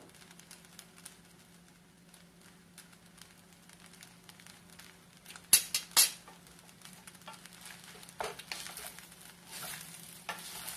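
Wooden spoons stirring and tossing fried rice in a stainless-steel skillet, scraping against the pan with a light sizzle, starting about two-thirds of the way in. Before that it is quiet with a low steady hum, broken about halfway by two sharp knocks half a second apart.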